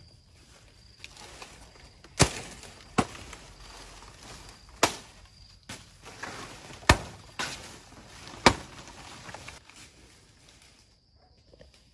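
A hand tool chopping, with about six sharp strikes at uneven intervals of one to two seconds, a few lighter knocks, and rustling between the strokes.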